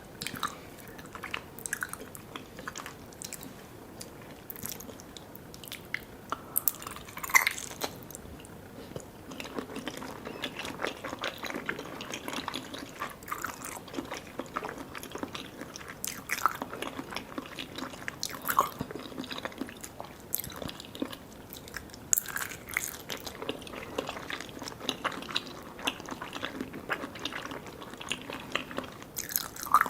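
Chewing and biting soft, sticky desserts (Vietnamese jelly and pandan layered cake), with many short sticky mouth clicks throughout and one sharper click about seven seconds in.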